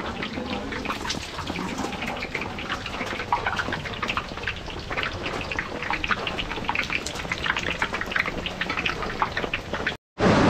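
Battered chops deep-frying in hot sunflower oil in a kadai: a steady, irregular crackling sizzle. It breaks off for a moment near the end.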